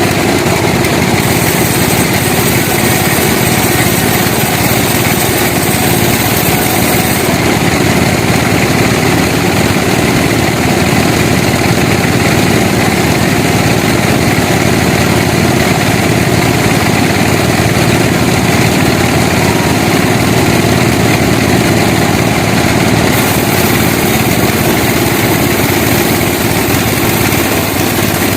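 Sawmill machinery running with a loud, steady, engine-like drone that continues without a break.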